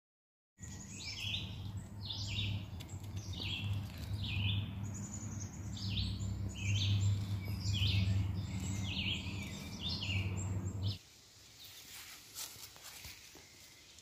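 Songbirds singing in repeated short chirping phrases, several a second, over a steady low hum. About eleven seconds in it cuts to a quieter outdoor ambience with a few faint rustles and clicks.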